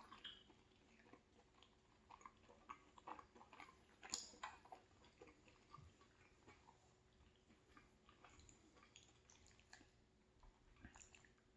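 Faint close-up chewing and mouth sounds of someone eating pasta, with scattered small clicks and smacks, one a little louder about four seconds in.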